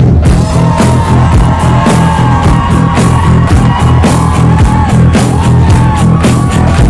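Music with a steady drum beat, a heavy bass line and a lead melody that slides between notes.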